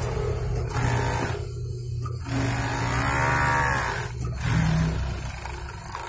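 Pegasus industrial overlock sewing machine running with a steady motor hum as fabric is fed through it. Near the middle, a long call that rises and then falls in pitch sounds over the hum.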